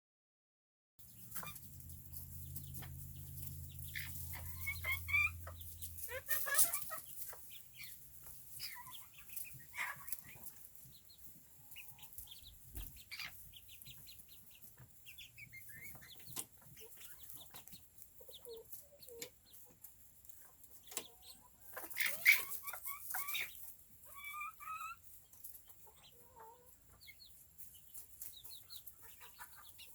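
Serama bantam chickens clucking and calling, with short clicks throughout and louder bursts of calling a few seconds in and again past the middle. A low steady hum runs under the first several seconds.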